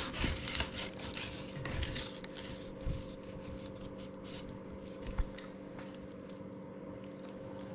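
Fillet knife slicing along the backbone of a speckled trout, with soft scraping and crunching strokes, over a steady electrical hum.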